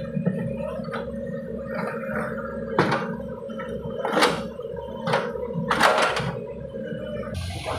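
Mini excavator engine running steadily, with several sharp metal clanks and knocks at irregular intervals as the steel track is worked on. The engine sound cuts off abruptly near the end.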